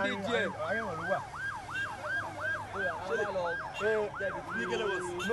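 Fire engine siren in a fast yelp, its pitch sweeping up and down about four times a second.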